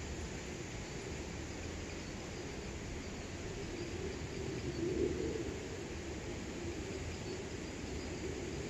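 Steady outdoor background noise with faint insect chirping, swelling briefly about five seconds in.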